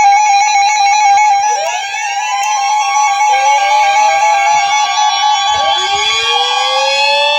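Electronic emergency-alert tones: a loud, buzzy tone that warbles rapidly, with siren-like wails sliding upward in pitch layered over it. The first wail comes in about a second and a half in, and two more follow.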